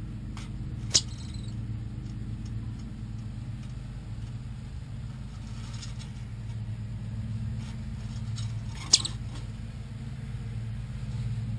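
Steady low hum, broken by two short, sharp high-pitched chirps, one about a second in and another about nine seconds in, with faint scattered ticks between them.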